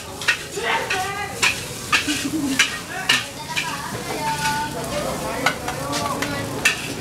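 A metal spatula scraping and clanking irregularly against a steel wok as nasi goreng is stir-fried and sizzles over the flame. Near the end the spatula scoops the rice out of the wok.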